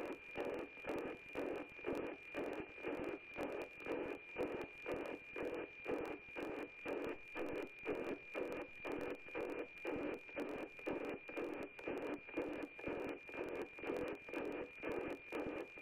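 NOAA-18 weather satellite's APT (automatic picture transmission) signal as audio from an FM receiver. A steady high tone throbs about twice a second in the tick-tock of the image lines being sent.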